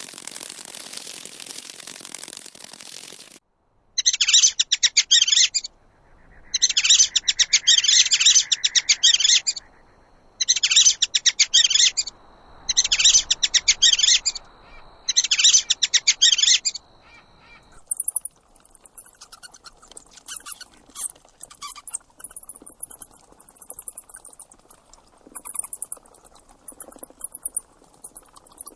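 Animal calls: a steady hissing rattle for the first few seconds, then five bursts of rapid chirping trills lasting one to three seconds each. From about two-thirds of the way in, faster, higher-pitched twittering follows.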